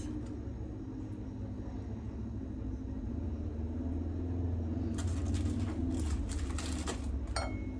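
A steady low rumble, with crinkling and light clicks between about five and seven seconds in as biscuits are handled from their plastic packaging and set in a glass baking dish, then a short ringing clink against the glass near the end.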